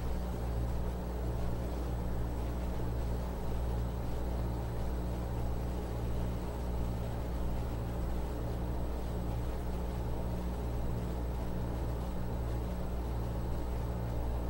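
Steady low hum with a faint hiss: room tone with no other sound.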